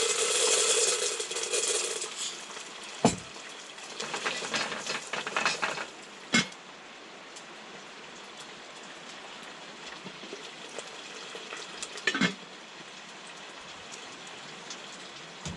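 Popcorn cooking over a campfire: a dense sizzling crackle for the first couple of seconds, another stretch of crackling a few seconds later, and single sharp pops about three, six and twelve seconds in.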